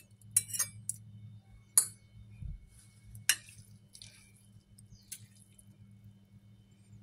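Utensils clinking against dishes: a handful of short, sharp taps spread irregularly over several seconds, over a low steady hum.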